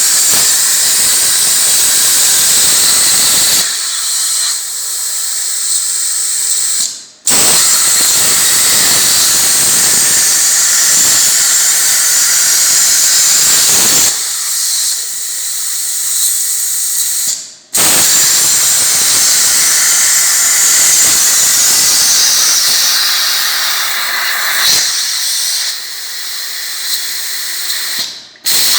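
Air plasma cutter on a CNC table cutting: a loud, steady hiss of the arc and compressed air. It cuts off briefly three times, about a quarter of the way in, past halfway and near the end, as the arc stops between cuts.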